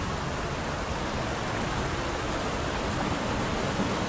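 Rocky mountain river rushing steadily over and between boulders in small cascades.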